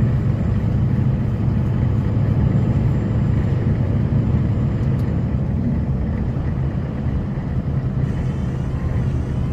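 Snowplow truck driving at speed while plowing fresh snow: a steady low engine and road rumble with a wash of noise over it.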